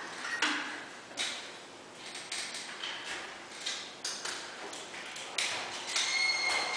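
Drywall stilts knocking on a bare concrete floor as the wearer steps about, irregular clacks roughly a second apart, with a brief squeak near the end.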